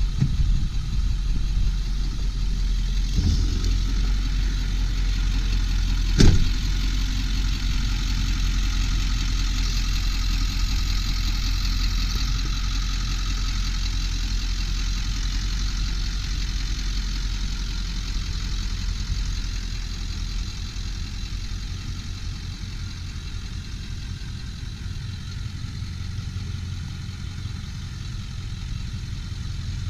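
1999 Ford F-250 Super Duty's 7.3-litre Power Stroke V8 turbo diesel idling steadily, with one sharp knock about six seconds in. The idle grows somewhat quieter in the second half.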